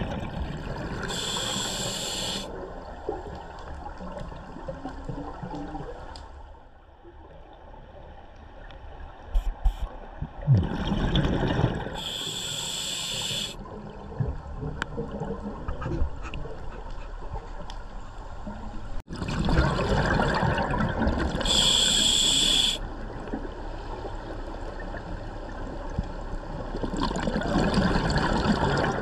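Scuba diver breathing through a regulator underwater: three short hissing inhales about ten seconds apart, with long gurgling rushes of exhaled bubbles between them.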